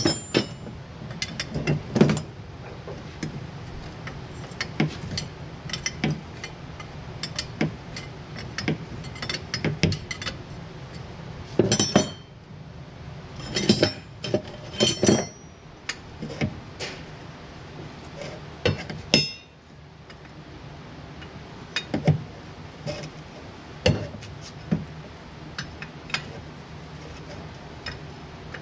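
Steel wrench clinking and knocking against metal fittings while working a nut behind a hydraulic control valve: irregular sharp metallic clicks, a few louder knocks about 2 s, 12 s and 14–15 s in, over a steady low hum.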